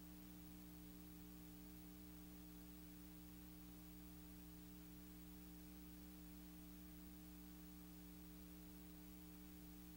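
Near silence: a faint, steady electrical hum with a few unchanging tones and a light hiss, with no sound of the scene itself.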